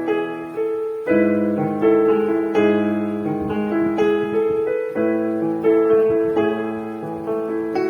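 Kurzweil KP110 portable keyboard playing its grand piano voice: a slow piece of chords and melody, with new notes struck about every half second to a second and each ringing on and fading.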